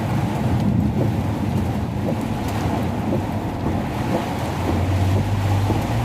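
Heavy rain and strong wind on a car driving uphill, a steady noisy rumble with the engine's low hum, which grows into a steadier low drone about five seconds in.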